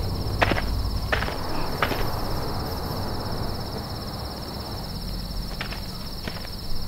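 Night-time chorus of crickets, a steady high trill, over a low rumble that fades after the first couple of seconds. There are a few sharp knocks scattered through it.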